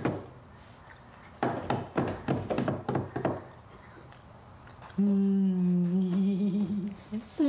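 A quick run of slaps on a plastic high-chair tray, then, about five seconds in, a person hums one long low steady note for about two seconds.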